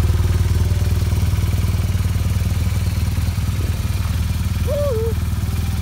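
BMW R1200GS Adventure's boxer twin engine idling steadily, with an even low pulse.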